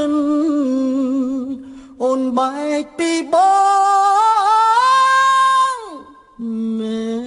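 Singing in a Khmer song, the voice almost unaccompanied: wavering phrases with vibrato, then one long held high note from about three seconds in that falls away near six seconds.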